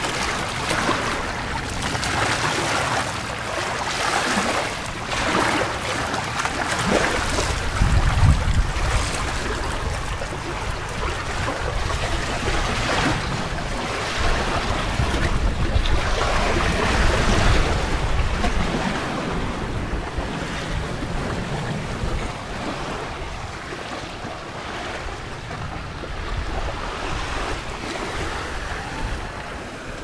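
Harbor waves washing with wind gusting over the microphone. The low rumble is heaviest about eight seconds in and again around seventeen seconds.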